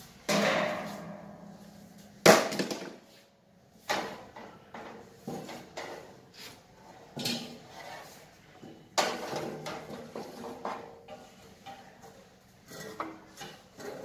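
Sheet-steel cable tray clanking and knocking as it is handled and fitted overhead: a dozen or so irregular metallic strikes, some ringing briefly, the sharpest and loudest about two seconds in.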